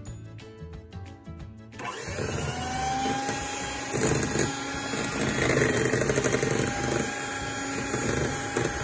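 Electric hand mixer switched on about two seconds in, its beaters whirring steadily as it beats a batter of eggs and sugar until thick. The motor's whine rises briefly as it comes up to speed, then holds steady.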